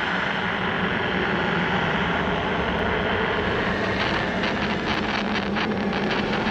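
Steady engine drone with a low hum; a rapid crackle joins about four seconds in.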